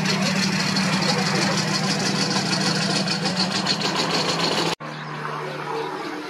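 Engines of historic military vehicles running, a steady low hum with a fast even pulse. About three-quarters of the way through it cuts off suddenly to quieter engine sound.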